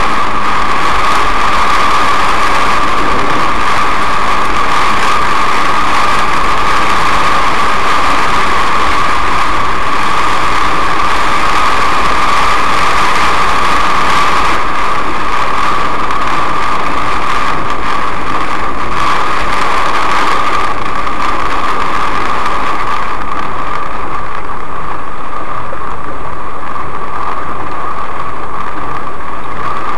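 Steady, loud noise of a car driving through a heavy downpour, heard inside the cabin: rain on the roof and windscreen mixed with tyres on a wet road. The hiss eases somewhat in the last several seconds.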